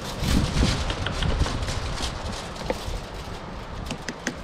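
Wind buffeting the microphone, with scattered small clicks and rustling from hands working butter into the mud crab.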